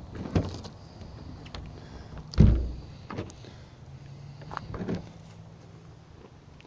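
A few dull knocks and thumps as a hand bumps and taps against a travel trailer's fiberglass storage compartment doors. The loudest, deepest knock comes about two and a half seconds in.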